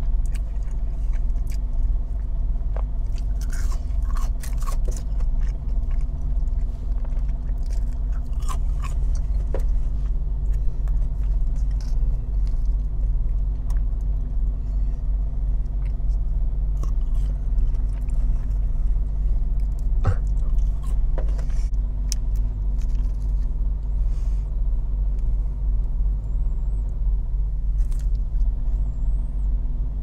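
Close-miked chewing and biting of French fries and macaroni and cheese, with scattered short mouth clicks, over a steady low rumble inside the car cabin.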